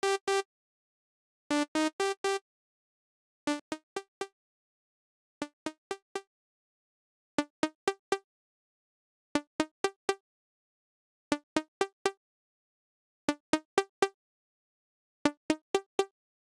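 Novation V-Station software synthesizer lead patch playing a short four-note phrase about every two seconds, clipped pitched notes whose last notes sit a step higher than the first. The phrase is quieter for a couple of groups early on, then louder again as its settings are changed.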